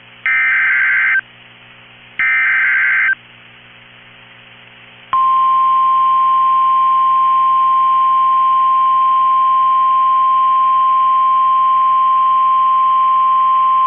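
NOAA Weather Radio emergency alert: two one-second bursts of the coded SAME data header, then, about five seconds in, the steady 1050 Hz warning alarm tone, held to the end, which signals that a warning message follows.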